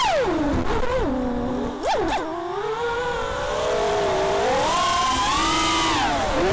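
Brushless motors of an FPV racing quadcopter (RotorGeeks 2205 2700KV) whining as the throttle changes: the pitch falls sharply at the start as the throttle is cut, jumps up and back down briefly about two seconds in, then climbs and wavers under power before dipping near the end.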